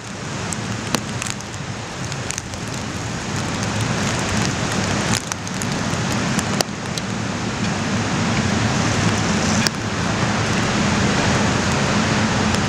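Hurricane-force wind and rain in a dense, steady rush, with a low rumble of wind buffeting the microphone, growing louder in gusts toward the end. A few sharp knocks break through now and then.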